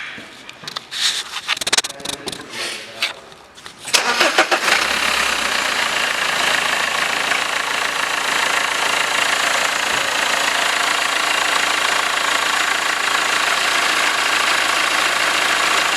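A few clicks and knocks, then about four seconds in the BMW 320d's M47 four-cylinder turbo diesel starts and runs steadily.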